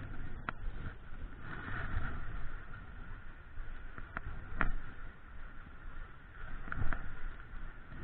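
Small stream running over stones, with wind rumbling on the microphone and a few sharp clicks, about half a second in, around four seconds in and twice near seven seconds.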